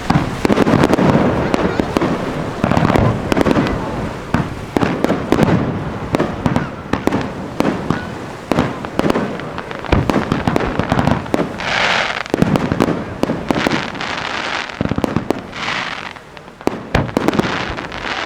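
Aerial firework shells going off in quick, irregular succession: a dense run of sharp bangs, with two longer bursts of crackling about twelve and fifteen seconds in.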